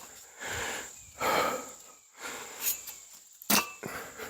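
A man breathing heavily from exertion, several hard, noisy breaths in a row. About three and a half seconds in there is a sharp knock.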